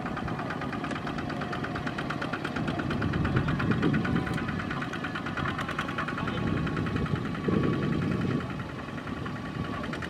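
Single-cylinder diesel engine of a two-wheel tractor (power tiller) chugging at an even, fast beat as it hauls a trailer loaded with rice sacks.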